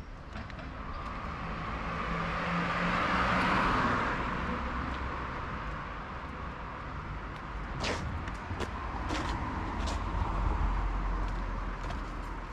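A car driving past, its engine and tyre noise swelling to a peak a few seconds in and then fading away. A few sharp clicks follow later on.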